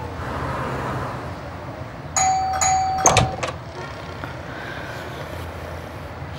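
Doorbell chime: two ding-dong tones about half a second apart, the second ringing on for about half a second. A sharp clack follows at once, over a steady low street hum.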